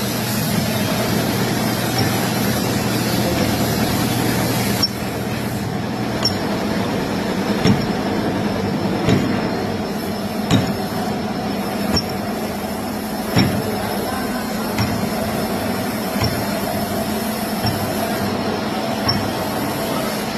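Machinery running steadily, with a metallic knock and clink repeating about every one and a half seconds.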